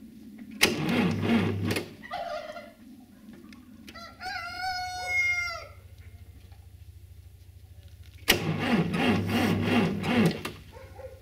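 Cold Massey Ferguson 35 tractor engine cranked on the electric starter twice, about two seconds each time, with a pulsing beat from the compression strokes, and not catching. A rooster crows once between the two cranks.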